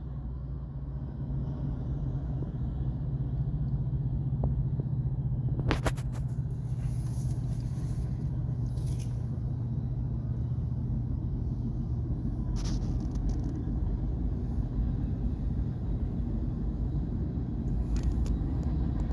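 Union Pacific manifest freight train passing at a good pace: a steady low diesel drone and rumble, with a few sharp clanks from about six seconds in.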